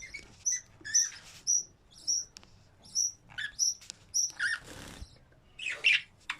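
Budgerigars chirping: short high chirps about twice a second, with a louder, rougher call near the end.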